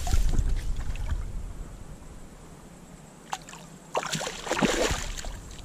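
Creek water splashing as a hooked brown trout is played close in, with a short burst of splashing about four seconds in and a single sharp click a little before it.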